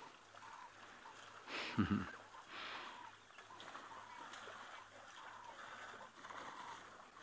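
Faint outdoor ambience with a bird calling in short, repeated notes, and a brief louder noise about two seconds in.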